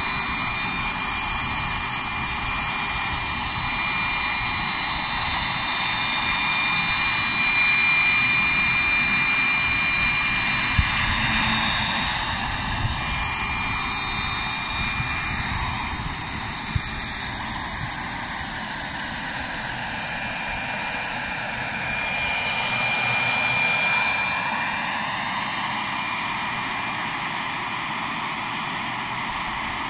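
Wren 44i model turboshaft turbine driving an RC helicopter's main rotor in flight: a steady high turbine whine over the rotor's whoosh, with slow shifts in pitch as the helicopter moves about.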